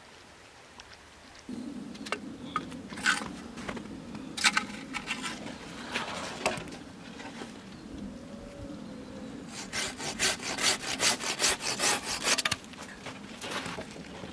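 Hand saw cutting through a wooden pole. There are scattered strokes at first, then a quick, even run of back-and-forth strokes, about five a second, for about three seconds, and a few more near the end.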